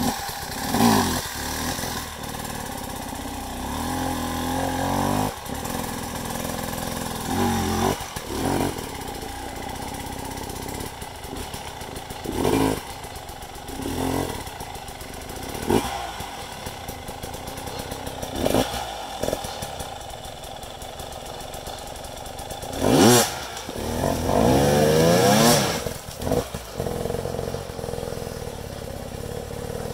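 Two-stroke enduro dirt bike engine revving in repeated short bursts, the revs rising and falling irregularly as it is worked up a steep rocky climb. The loudest, longest run of revving comes near the three-quarter mark.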